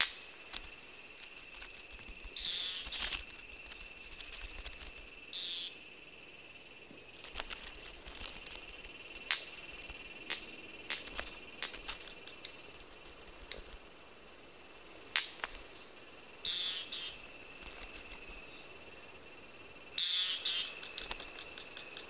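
Red-capped manakins displaying: sharp, dry wing snaps scattered through, several louder buzzy rasps, and a thin whistled call that rises and falls near the end. Under it all is a steady high insect chorus.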